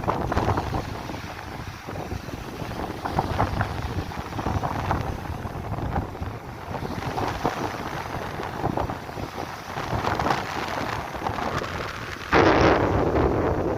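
Strong gusty wind buffeting the microphone, rising and falling in gusts, then jumping abruptly louder near the end.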